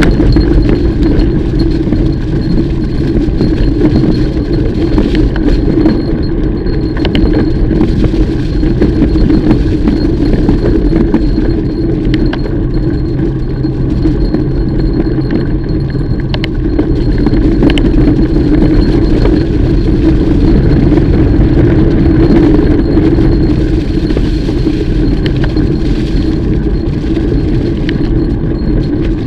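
Mountain bike rolling over a dirt trail: a loud, steady rumble of tyres and frame with scattered clicks and rattles.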